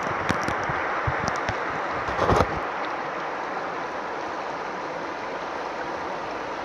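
Rushing river water running over rocks, a steady hiss, with a few short knocks and a louder bump about two seconds in.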